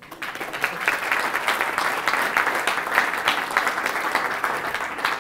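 Audience applauding, many hands clapping at once, easing slightly near the end.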